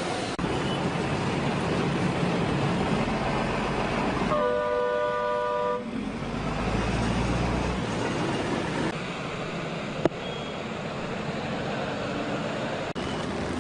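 Steady noise of traffic on a flooded highway. About four seconds in, a vehicle horn sounds one held two-note blast for about a second and a half.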